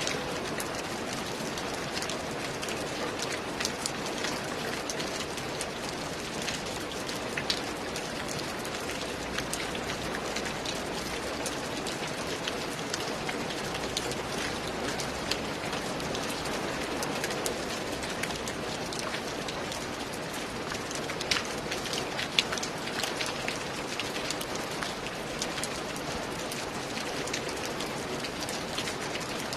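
Steady rain falling, an even hiss dotted with the sharp ticks of individual drops striking a surface, a few of them louder about three-quarters of the way through.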